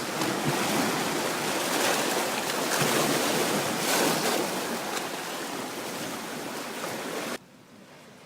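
Black Sea waves washing onto the shore, a loud rush that swells and eases, then cuts off suddenly near the end.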